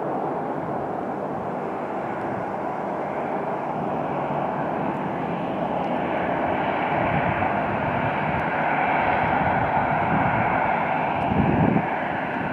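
Airbus A319 airliner's twin jet engines running at taxi power: a steady whine and rush that grows louder about halfway through as the aircraft turns toward the listener.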